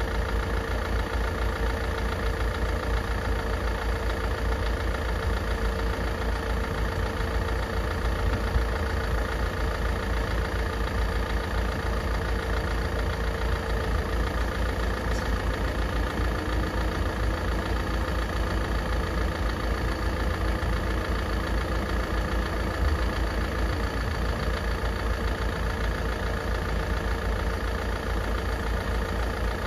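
Car engine idling steadily, with an even low throb.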